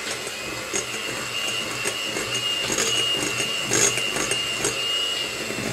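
Electric hand mixer running with a steady whine, beating eggs, sugar and oil into cake batter in a glass bowl, with a few sharp ticks along the way.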